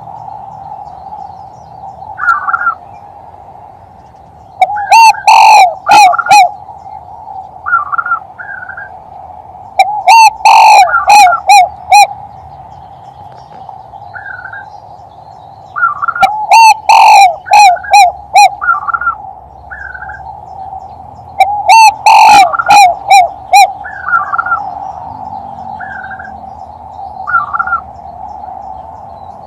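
Male spotted dove (tekukur) giving its three-note 'kuk' coo as a hunting lure call. The loud, overdriven coo phrases come in four bouts, about every five to six seconds, with softer short calls between them over a steady background hum.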